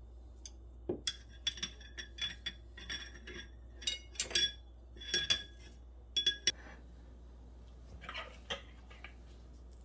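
Metal knife and fork clinking together in a quick, irregular run of ringing clicks, followed by a few duller knocks as they are set down on the countertop near the end.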